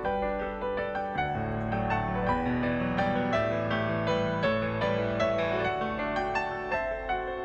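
Solo grand piano playing a slow, gentle piece, with deeper bass notes and chords coming in about a second in under the melody.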